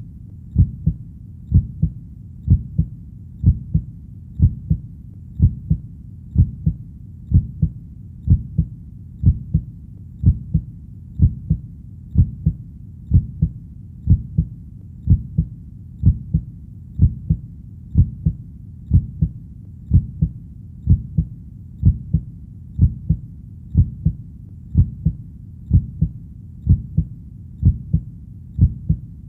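Heartbeat, a steady double 'lub-dub' beat repeating about once a second, low in pitch.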